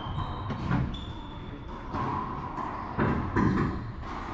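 Racquetball rally in an enclosed court: several sharp, echoing smacks of the ball off racquets and walls, the loudest about three seconds in. Sneakers give short squeaks on the hardwood floor.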